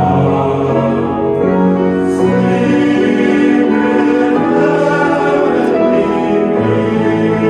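Large student choir singing slow, sustained notes in harmony, with piano accompaniment.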